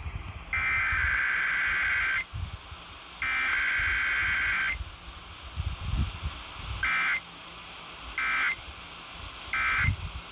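Emergency Alert System SAME data bursts received over AM radio: the buzzing two-tone header is sent twice, each burst about a second and a half long, then three short end-of-message bursts follow about a second apart, marking the close of a required weekly test. A low rumble of radio noise runs underneath.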